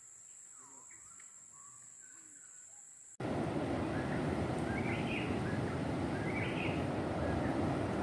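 For about three seconds, birds calling with short sweeping notes over a steady high insect trill. Then, after a sudden switch, loud wind buffeting the microphone over surf washing on the shore, with birds chirping twice.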